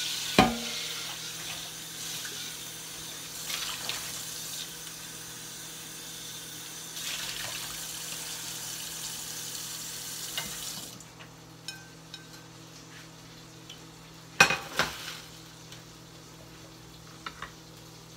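A hot skillet being cleaned out: a steady hiss of water and sizzling that cuts off abruptly about eleven seconds in. There is a loud clank of the pan just after the start and two more about fourteen seconds in.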